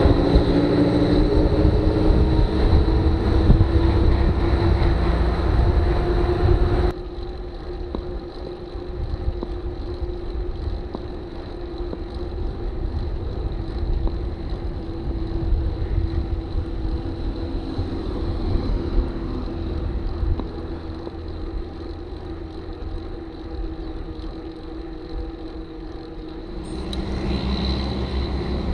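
Wind rumbling on a bike-mounted camera's microphone while riding on a highway, with a motor vehicle running ahead whose pitch rises slowly. About seven seconds in, the sound drops suddenly to a quieter steady road-and-wind noise at a slower riding speed.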